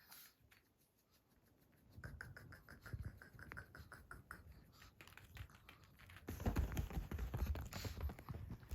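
A small short-haired chihuahua snoring: a fast rattling pulse of breath that starts about two seconds in and grows louder and rougher from about six seconds.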